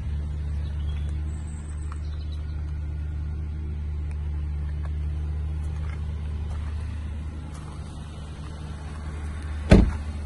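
Volvo XC90's driver's door slammed shut with one heavy thud near the end, over a steady low hum.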